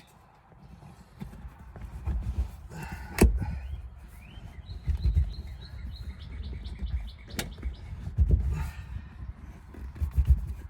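Rubbing and handling noise as a leather seat-cover headrest is pulled and worked into place, with two sharp knocks, one about three seconds in and one about seven seconds in. A small bird chirps in a quick run of high notes in the middle.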